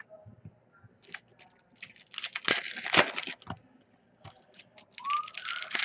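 A 2019 Panini Donruss football hobby-pack foil wrapper being torn open and crinkled by hand. It crackles in two bursts, a louder one about two to three and a half seconds in and another near the end.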